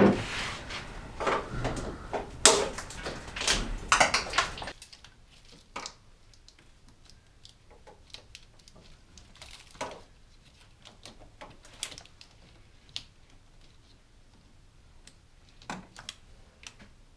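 Plastic zip ties being cut off wiring: a quick run of sharp clicks and snips, then, about five seconds in, only scattered fainter clicks.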